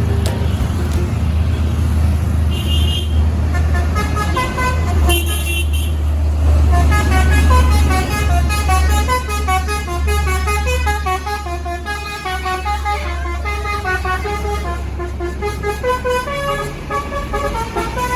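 A bus's basuri musical horn plays a quick melody of short notes stepping up and down over the bus's deep engine rumble, after a couple of brief higher horn toots.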